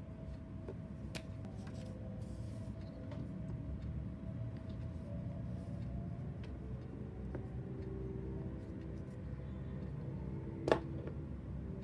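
Quiet stationery handling at a desk: a few light taps and ticks, then one sharp click near the end, over a steady low hum.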